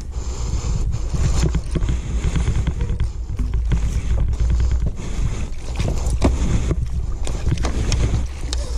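Kayak on the water with wind rumbling on the microphone, water splashing and many small sharp knocks against the boat.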